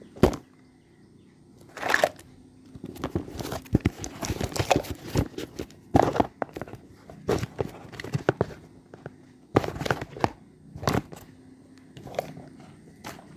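Packaging of a miniature toy kitchen set being handled and opened: crinkling and tearing, broken by sharp, uneven clicks and knocks.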